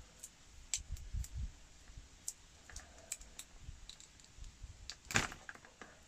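Handling noise of fingers twisting and working a stranded earth wire: scattered small clicks and rustles, a few dull low bumps about a second in, and a sharper click about five seconds in.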